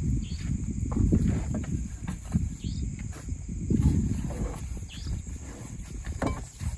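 Wind buffeting the microphone in uneven gusts, over a steady high chirring of crickets, with rustling and light knocks of camping gear being pulled out of a car's boot.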